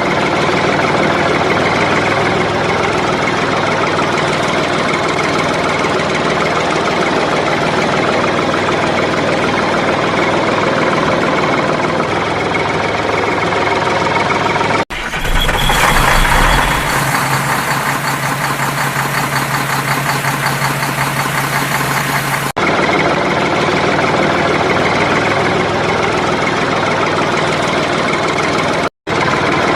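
Vehicle engine running steadily, the sound changing abruptly twice as one engine sound is cut to another.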